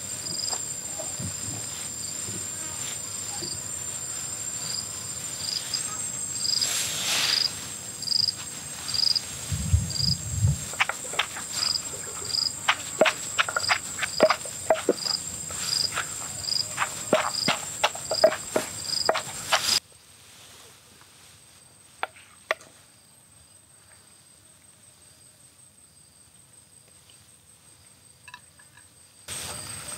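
Insects chirping: a steady high trill with a regular pulsing chirp a little more than once a second. A run of sharp clicks and knocks comes in over the middle. About two-thirds of the way through, the sound drops abruptly to a faint background with a few isolated clicks, then comes back just before the end.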